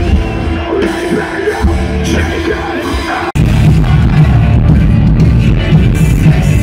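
Live rock band playing through a festival PA, recorded from within the crowd, with some singing. About three seconds in the sound cuts abruptly to a louder, bass-heavy stretch of the performance.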